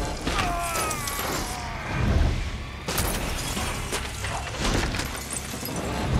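A police sedan crashing and tumbling down a rocky slope: repeated impacts of crumpling metal and breaking glass, with heavy thuds as it lands on the rocks. A short falling screech comes about half a second in.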